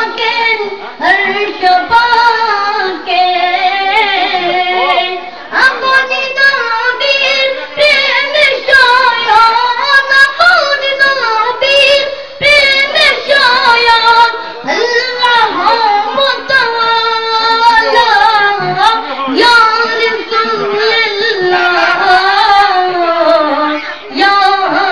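A high voice singing a Bengali devotional song in praise of the Prophet Muhammad, in long melodic phrases with short breaths between them.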